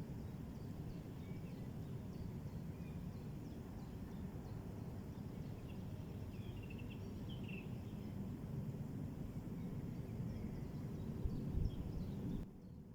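Faint bird chirps and short calls from a lakeside, clustered about halfway through, over a steady low rumbling background noise, with a couple of low thumps near the end.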